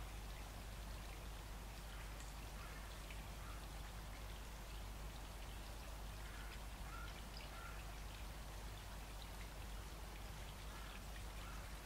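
A small stream running: a steady, faint watery rush with small gurgles scattered through it.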